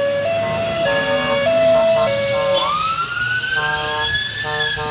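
Fire engine sirens: a two-tone siren alternating between a high and a low note about every 0.6 s, joined about two and a half seconds in by a siren winding up into a rising wail, while a second two-tone siren starts up at a higher pitch.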